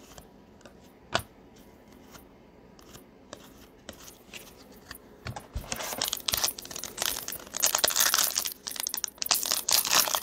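A 2021-22 Donruss Elite foil card pack crinkling and being torn open from about six seconds in. Before that, only a sharp click about a second in and a soft thump.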